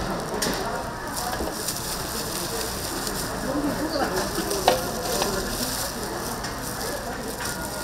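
Tteokgalbi (Korean minced short-rib patties) sizzling steadily as they cook, with one sharp clack a little past halfway.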